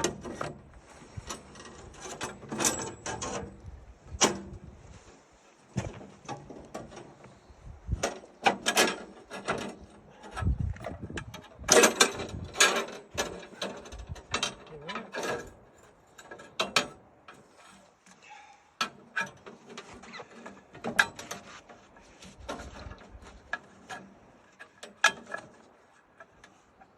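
Irregular metallic clanks, clicks and rattles of a bandsaw blade being handled and seated onto the wheels of a portable bandsaw mill.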